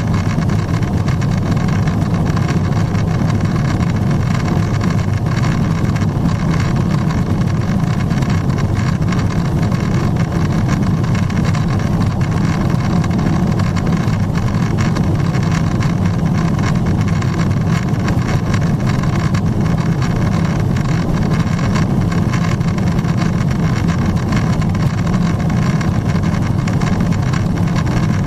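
Steady cabin noise inside a Boeing 777-300ER in its climb: an even, deep drone of the GE90-115B engines and the airflow over the fuselage, unchanging throughout.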